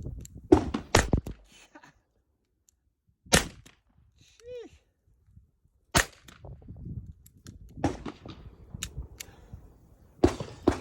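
Nagant M1895 revolver firing 7.62 Nagant rounds double action: about six sharp shots at uneven gaps of half a second to three seconds.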